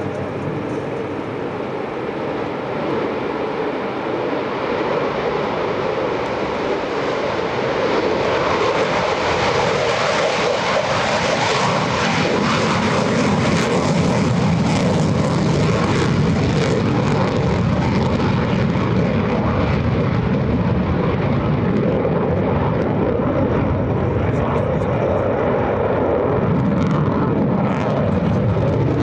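F-35C Lightning II jet engine (Pratt & Whitney F135) at high power. It grows louder about eight seconds in and then holds a loud, steady roar with a crackling edge, as on its takeoff run.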